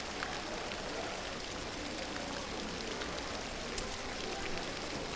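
Steady hiss of the diving pool's water in an indoor venue, with a couple of faint ticks.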